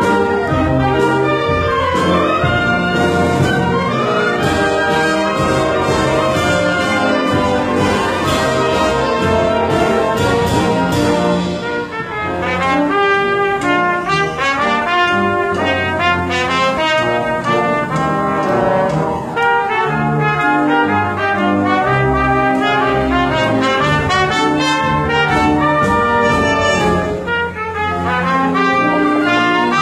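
Symphonic wind band playing a slow piece, with a solo trumpet taking the melody over the band from about halfway through.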